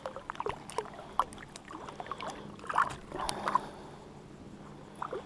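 Small splashes and water sloshing in shallow water, with scattered light clicks and taps, as a freshly caught yellowfin whiting is handled on the line.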